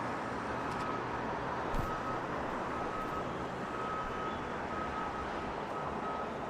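Steady street traffic noise from passing vehicles, with a faint, repeating high beep and a short thump about two seconds in.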